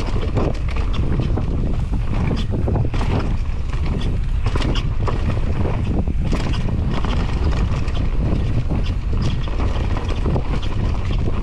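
Mountain bike descending a dirt forest trail: wind buffeting the camera's microphone over the tyre roar, with frequent rattles and knocks from the bike over the bumps.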